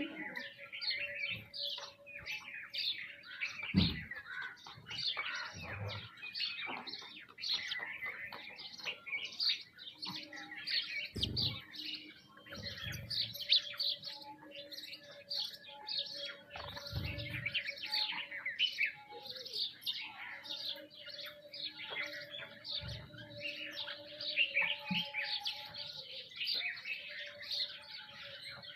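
A flock of small birds, sparrows and mynas among them, chirping continuously and densely over one another. A few brief low thumps are heard among the chirps, along with a faint steady hum.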